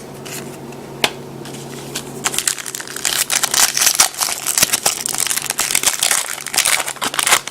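A trading-card pack's wrapper being torn open and crinkled, a dense run of rapid crackling from about two seconds in, after a single sharp click about a second in.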